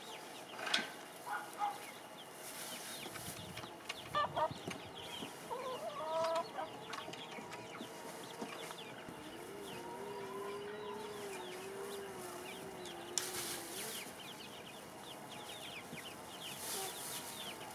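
Chickens clucking: a few short calls in the first half, then one long wavering call lasting several seconds about halfway through.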